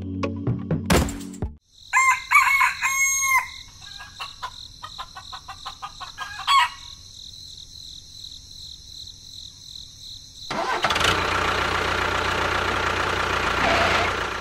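A rooster crowing once, about two seconds in, followed by scattered clicks. Near the end comes a steady rushing noise lasting about four seconds.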